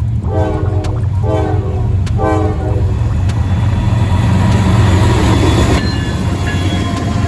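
Diesel locomotive air horn sounding three short blasts over the steady low rumble of the engine. The train's noise then swells as it comes by.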